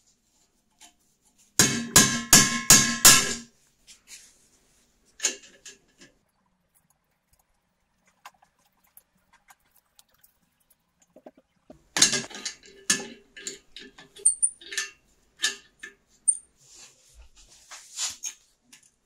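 Metal tools knocking and clicking on the seized valve fitting of an old brass blow torch held in a vise. About two seconds in there are five quick, ringing metallic knocks. From about twelve seconds a further run of clicks and knocks follows as a wrench works the stuck fitting loose.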